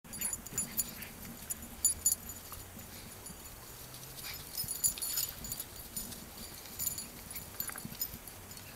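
A Greater Swiss Mountain Dog and a Bernese Mountain Dog puppy playing tug of war with a rope toy: scuffling on dry grass, with scattered sharp clicks and metallic jingling and faint dog sounds.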